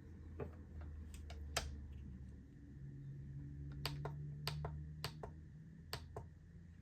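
About a dozen light, sharp clicks and taps, several in quick pairs, from pocket multitools being handled and set down to be weighed.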